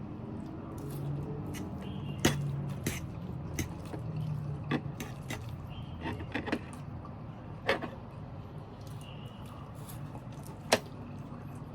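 A person eating pancit bato noodles close to the microphone: chewing, with scattered sharp clicks, the loudest three near the start, middle and end, over a steady low hum.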